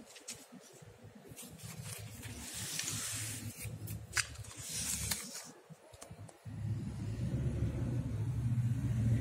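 Paper rustling, with two bursts of crinkling hiss and clicks near the middle, as book pages are handled and turned. A low rumble rises under it towards the end.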